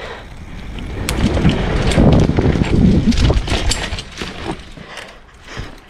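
Mountain bike rolling fast down a dirt trail: tyres rumbling over dirt and roots, with many sharp knocks and rattles from the bike on bumps, and wind buffeting the microphone. It builds over the first two seconds and fades after about four.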